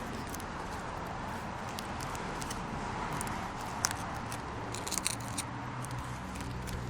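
Steady background noise with a low hum, broken by a few small sharp clicks about four and five seconds in.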